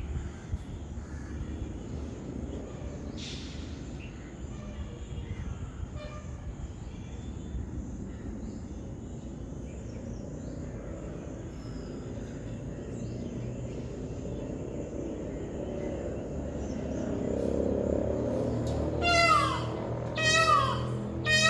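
Peacock giving loud cat-like calls, each sliding down in pitch, three in quick succession near the end, over a steady background rumble.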